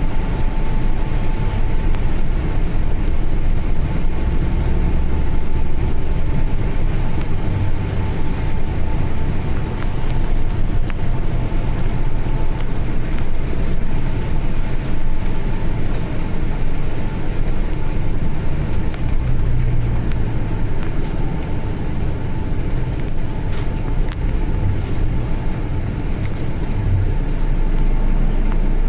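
Inside a Volvo B8 diesel bus on the move: steady engine and road rumble, with a faint steady whine running through it.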